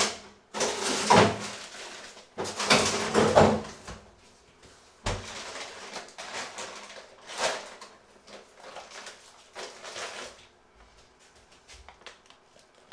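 A freezer drawer being pulled out and pushed back, with loud scraping slides in the first few seconds and a knock about five seconds in. Then a plastic bag of frozen vegetables crinkles as it is handled.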